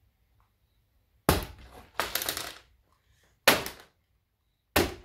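Sledgehammer smashing the wooden frame of a rear-projection TV cabinet: four heavy blows, the second followed by about half a second of splintering and clattering.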